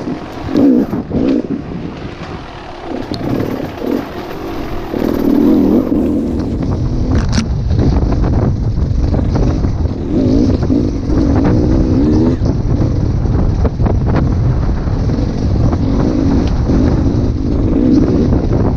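Dirt bike engine revving up and down unevenly, with wind buffeting the microphone from about a third of the way in.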